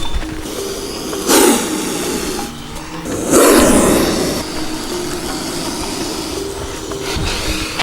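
Two rough, noisy animal calls, a short one about a second in and a longer one about three seconds in, over faint background music.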